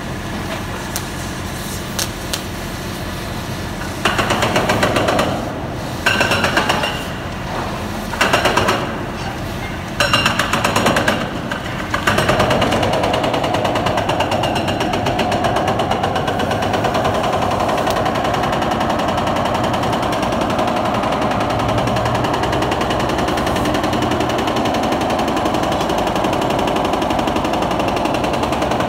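Jackhammer breaking concrete: four short bursts of rapid hammering of about a second each, then steady continuous hammering from about twelve seconds in. A steady engine drone runs underneath.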